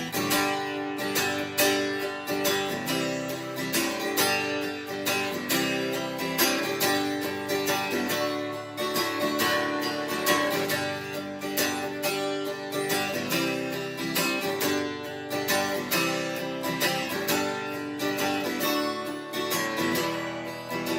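Instrumental break in a country song: a band with strummed guitar playing a steady beat, no vocals.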